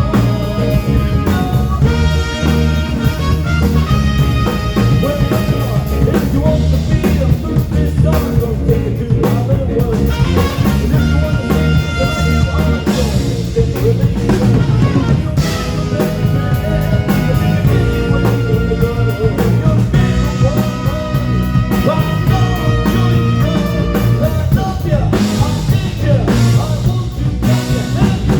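Loud music with drums and singing, in a rock or ska style with a steady beat.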